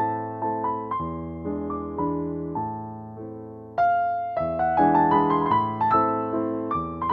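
Background piano music: single notes and chords struck about twice a second, each fading after it is played. The music softens just before four seconds in, then a new, louder phrase begins.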